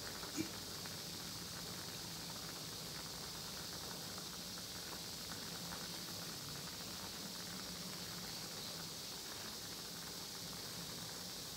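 Bananas boiling in coconut milk in a stainless steel pan, a steady bubbling and crackling simmer over a faint low hum. There is one brief click about half a second in.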